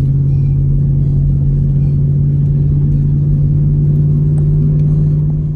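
Car driving at a steady speed, heard from inside the cabin: a loud, steady low drone of engine and road noise.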